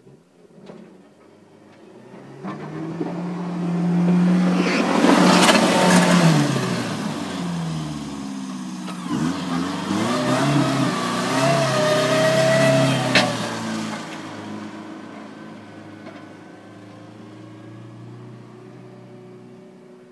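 Pickup truck with a front snowplow blade driving past while plowing snow: the engine revs up and down, grows louder as the truck approaches and fades away over the last several seconds. Two sharp clacks cut through, about five seconds in and again about thirteen seconds in.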